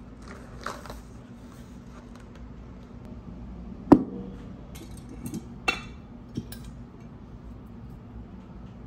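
Glass swing-top storage jar being handled and opened: a sharp glassy knock about four seconds in, then a bright clink and a smaller click from the glass lid and its metal wire clasp. A short paper-bag rustle comes near the start.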